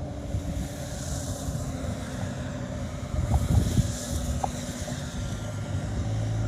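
Highway traffic going past, its tyre hiss swelling twice, over the steady hum of a nearby engine running.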